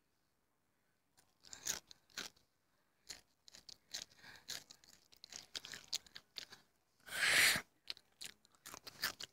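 Crunchy food being chewed with the mouth right up against the microphone: irregular crackling crunches and mouth clicks, with one louder half-second burst of noise about seven seconds in.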